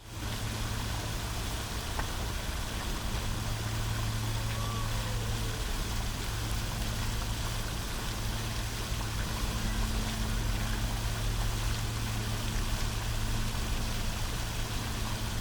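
Small outdoor fountain splashing and trickling as a steady hiss, over a constant low hum and the sound of city vehicles.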